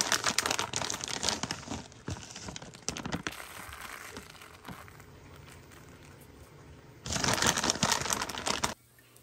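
Plastic bag of shredded cheese crinkling as cheese is shaken out onto a tortilla. It comes in two loud spells, about three seconds at the start and about two seconds near the end, with quieter rustling between.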